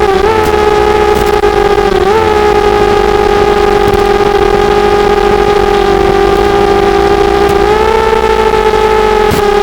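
Brushless motors of a 250-size quadcopter whining steadily in flight, their pitch shifting briefly twice in the first few seconds and stepping up slightly near the end as the throttle changes.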